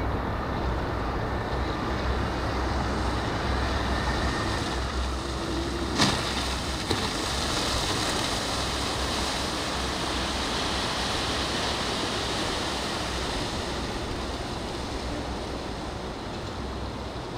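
Steady rumbling rush of wind and water heard out on the lake, with no clear engine note, and a single sharp knock about six seconds in.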